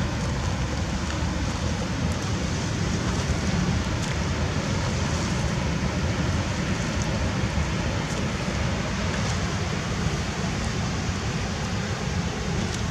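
Steady wind noise buffeting the microphone outdoors: a continuous low rumble under an even hiss.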